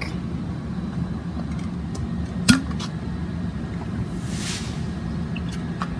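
A sharp click about two and a half seconds in, as a plastic water bottle is opened for a drink, over a steady low hum. A brief soft hiss follows a little after four seconds.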